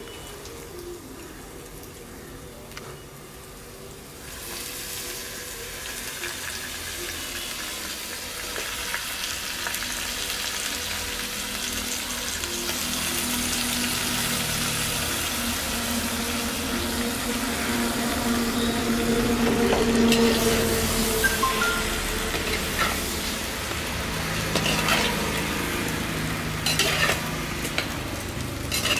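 Raw mutton pieces sizzling as they sear in an earthen pot over a wood fire, starting about four seconds in and growing louder. A metal slotted ladle stirs the meat and clicks and knocks against the pot now and then.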